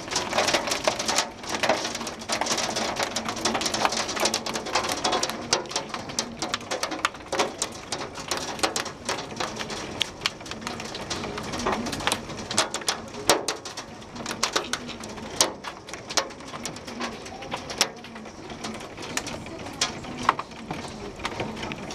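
Hail coming down hard: a dense, irregular patter of sharp hailstone hits.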